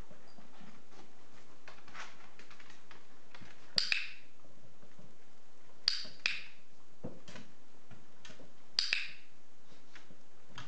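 Three pairs of sharp clicks or taps, about two to three seconds apart, each with a brief bright ring after it.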